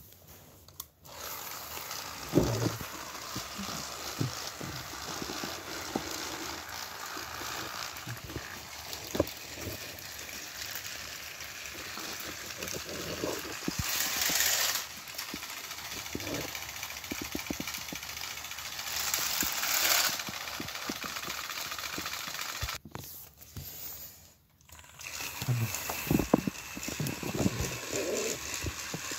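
Battery-powered Thomas & Friends toy engines running along plastic track: a steady motor whir and wheel rattle with scattered clicks and knocks, dropping away briefly about three-quarters of the way in.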